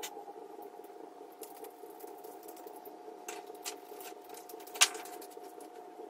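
Small clicks and taps of a screwdriver and a plastic plug being handled while fitting a plug onto a heavy power cord, with one sharp, louder click near the end.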